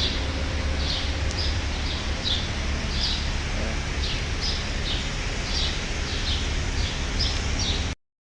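Birds chirping in short, repeated high calls about twice a second over a steady low rumble; the sound cuts off suddenly near the end.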